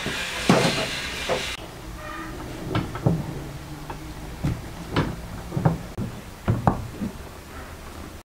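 Tap water running into a sink, with a knock, until it cuts off about a second and a half in. Then a knife cuts raw potato on a wooden cutting board, with about ten separate chopping thumps at an uneven pace.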